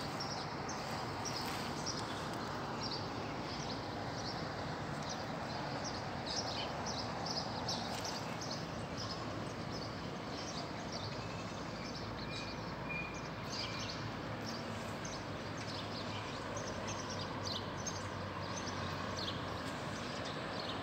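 Outdoor town ambience: a steady background hum with many short, high bird chirps scattered throughout.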